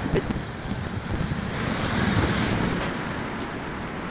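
Steady rushing street noise, traffic and wind on the phone's microphone, swelling a little about two seconds in.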